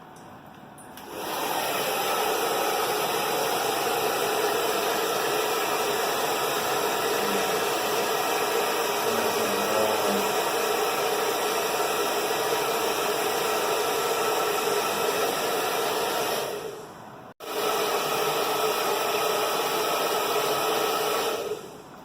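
Hand-held hair dryer blowing with a steady whooshing hiss, switched on about a second in. It dies down about three-quarters of the way through, runs again right after, and stops just before the end.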